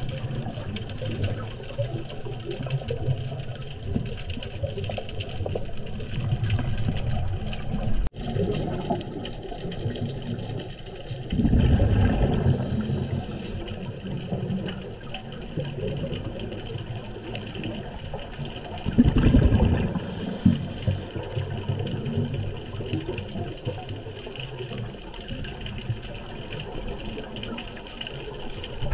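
Underwater scuba-diving audio: a steady low bubbling hiss, with two louder gushes of exhaled bubbles from a diver's regulator, the first about twelve seconds in and the second about seven seconds later.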